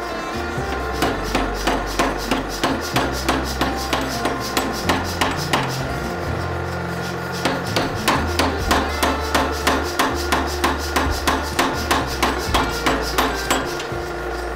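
Mechanical power hammer driving a steel drift through the eye of a red-hot axe head: a rapid train of metal-on-metal blows, about three a second, with a short pause about halfway through. The blows are stretching the punched eye out to its finished size.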